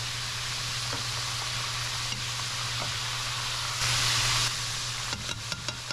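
Breaded catfish fillets frying in hot oil, a steady sizzle that swells briefly about four seconds in. A few light clicks near the end.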